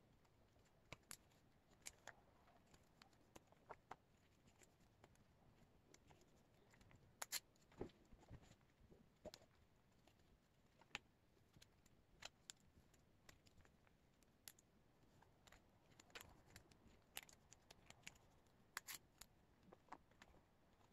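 Faint, irregular plastic clicks and crinkles of sleeved photocards being slid into and out of the clear plastic pockets of a collect-book binder, with its plastic pages handled and turned.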